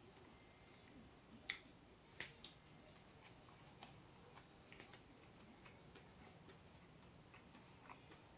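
Near silence broken by faint, scattered short clicks and ticks at irregular intervals, the loudest about one and a half seconds in and just after two seconds.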